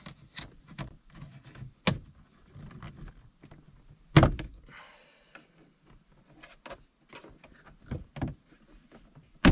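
Plastic interior trim panels on a Hyundai Genesis coupe being pried off: a series of sharp clicks and knocks as the clips let go. The loudest knock comes about four seconds in, another about two seconds in.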